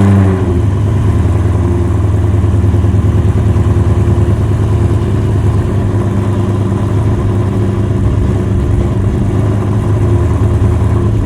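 Cammed, Whipple-supercharged 4.6-litre DOHC V8 of a Terminator Mustang SVT Cobra, breathing through Kooks headers and a Borla ATAK exhaust, idling loudly with a choppy cam lope just after start-up. It settles from a slightly higher idle in the first second, then holds steady as the engine warms up before driving.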